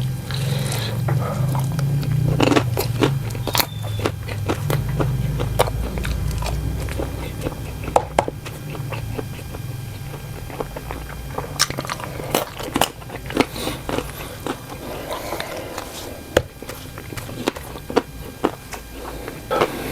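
Close-miked mouth sounds of biting and chewing cocktail sausages in green chili sauce: irregular wet clicks and smacks. A low hum runs under the first half.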